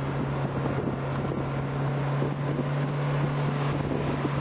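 Motorboat engine running at a steady pitch while towing a parasail, with wind noise on the microphone.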